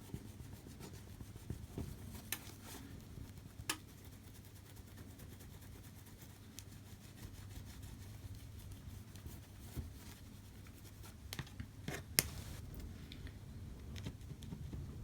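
Soft scraping and rubbing as softened glue is worked off the face of an iPhone LCD panel, with a few sharp little clicks, the sharpest about twelve seconds in.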